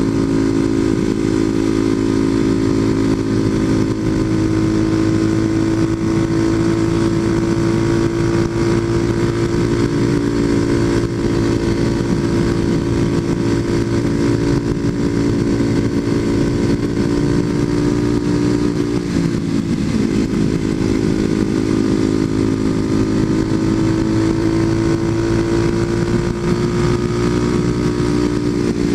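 Kawasaki KLX250SF's single-cylinder four-stroke engine, fitted with a Muzzy aftermarket exhaust, running steadily while the motorcycle cruises at road speed. Its note dips briefly about two-thirds of the way through and shifts again near the end, with wind noise underneath.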